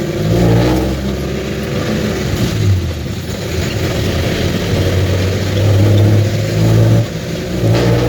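A motor vehicle's engine running as it drives, a steady low drone whose pitch shifts now and then with the throttle.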